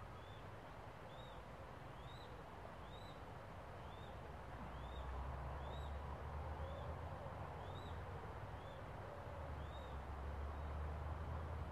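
Young northern goshawk at the nest giving a steady series of thin, whistled begging calls, each rising then falling, about three every two seconds. Under them runs a low rumble that grows louder about five seconds in.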